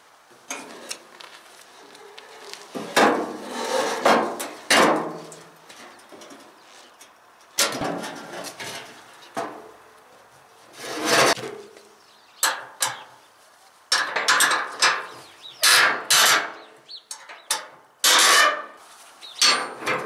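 A series of loud, irregular metal clanks and scrapes, some ringing, as a steel wheelbarrow is turned upside down on asphalt. Combination spanners then clink on the wheel's axle nuts as the wheel is unbolted.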